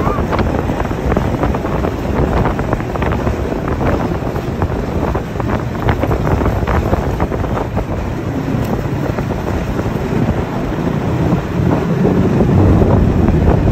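Snowmobile riding through snow, heard from on board: its engine and track running steadily under heavy wind buffeting the microphone. The noise swells a little in the last couple of seconds.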